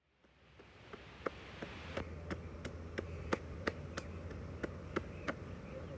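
Knife chopping on a cutting board in an even rhythm of about three strokes a second, each a sharp tap, over a steady outdoor background hiss.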